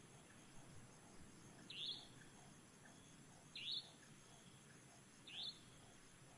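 A bird chirping three times, each a quick upward-sweeping note, about two seconds apart, over faint outdoor background noise.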